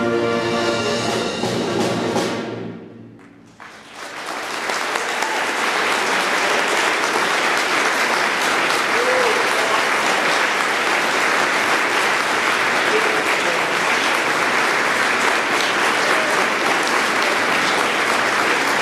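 A high school symphonic band's final held chord, brass and winds together, cuts off about two seconds in and rings away in the hall. The audience then breaks into steady applause.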